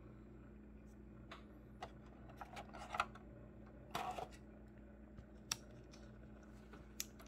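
Scattered light clicks and taps, busiest about three and four seconds in, over a steady low hum.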